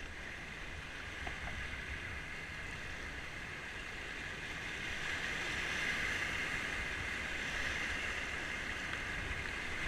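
Rushing whitewater of a river rapid, a steady rush that grows a little louder about five seconds in.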